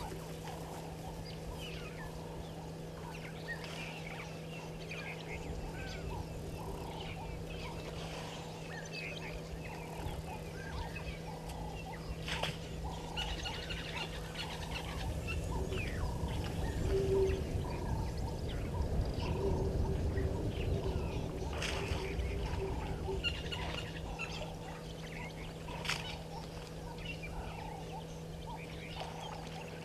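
Wild birds chirping and calling in short bursts, over a steady low electrical hum. A low rushing noise swells for several seconds in the middle, the loudest part.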